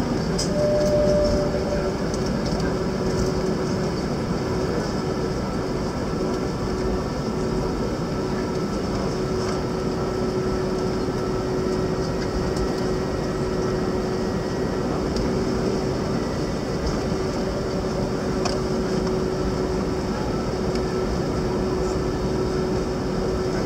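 Cabin noise of an Airbus A321neo taxiing: its engines at taxi idle make a steady hum with a steady whining tone running through it. A short, higher tone sounds about a second in.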